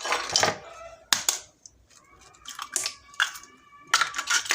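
Raw eggs being cracked one after another: several sharp cracks of eggshell breaking, with short pauses between them.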